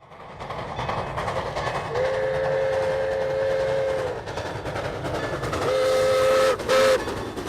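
Train horn sounding a long two-note blast about two seconds in, then two shorter blasts near the end, over the steady noise of a moving train.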